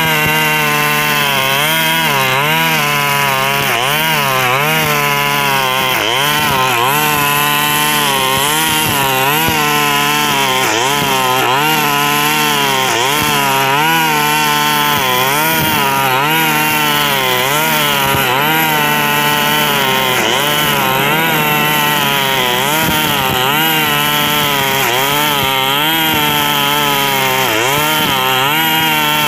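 KNC 4400 brush cutter engine running loudly while its trimmer line cuts grass, its pitch rising and falling every second or two as the throttle and the load change. The exhaust is rusted through with small holes, which makes the engine very loud, likened to an old warship.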